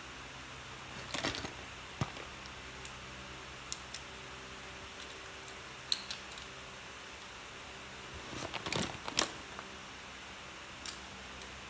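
Light handling noise of small objects: scattered short clicks and rustles, with a busier cluster about a second in and another near nine seconds, over a steady low hum.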